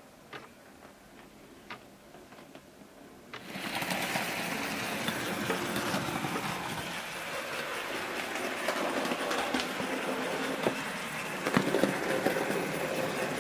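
Brass HO-scale Tenshodo 4-6-4 Hudson model steam locomotive running on track, its Canon EN-22 motor and gearing whirring with quick small clicks from the wheels on the rails. At first only a few faint clicks are heard, then about three and a half seconds in the running noise gets suddenly louder and stays close.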